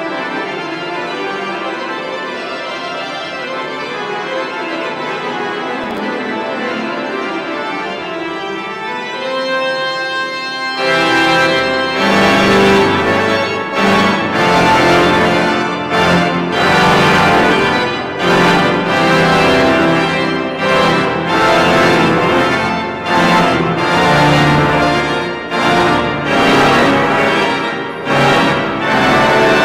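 Church pipe organ playing. It starts with soft held chords, then about eleven seconds in deep bass notes come in and it grows louder, the chords changing about once a second.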